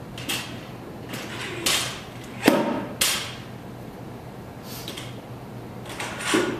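Weight plates being slid onto a barbell and knocked against each other and the bar while the load goes up to 135 lb. The result is a series of separate metal clanks and scrapes, about six in all. The loudest and heaviest clank comes about two and a half seconds in.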